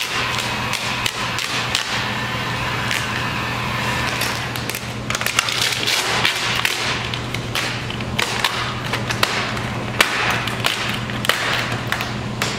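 Vinyl wrap film crackling and rustling as it is lifted and pressed by hand along the edge of a car hood, with many short sharp clicks and scrapes, over a steady low hum.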